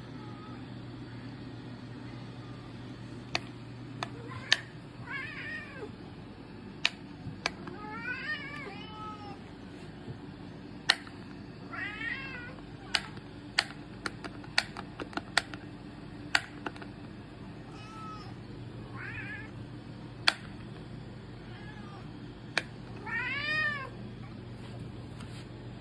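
Domestic cats meowing for food, about six meows spread several seconds apart, the longest near the end. Sharp clicks are scattered between the meows, and a steady low hum runs underneath.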